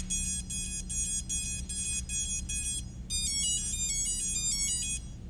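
Brushless drone motors beeping as speakers for their BLHeli ESCs during throttle-range calibration: short identical high beeps about three times a second, then after about three seconds a quick run of notes at changing pitches, the ESCs answering the throttle being dropped to minimum. A low steady hum sits beneath.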